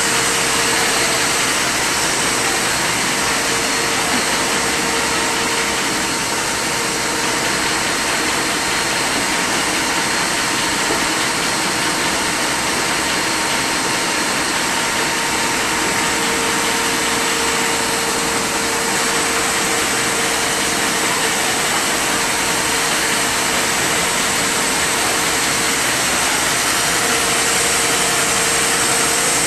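Moll folder-gluer running at production speed, about 40,000 cartons an hour, as carton blanks feed through its belts and rollers. It makes a loud, steady mechanical whir with a faint hum that fades in and out.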